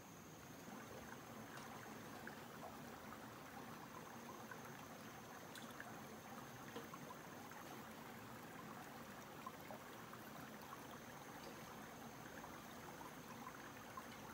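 Shallow forest stream trickling over rocks: a faint, steady burble of flowing water.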